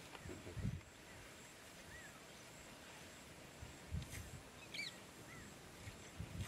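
Quiet outdoor grassland ambience: a few short bird chirps over a steady faint hiss, with some low dull thumps.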